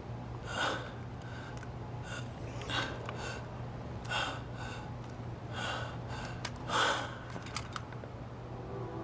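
A person's gasping breaths, about five of them, a second or so apart, over a steady low hum.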